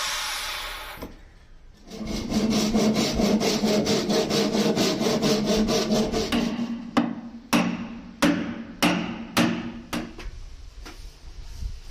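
Plywood being sawn: a quick, even run of saw strokes, then about six slower, separate strokes a little over half a second apart.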